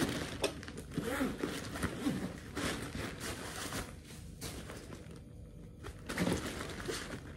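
A backpack being handled: irregular rustling and crinkling with small knocks as it is turned over and its parts are moved, quieter for a stretch about two thirds of the way through.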